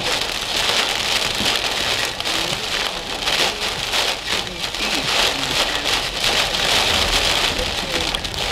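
Heavy rain pelting a car's windshield and roof, heard from inside the cabin as a loud, dense, steady patter.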